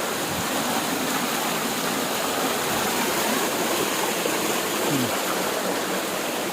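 Steady rush of water falling and churning at a waterfall.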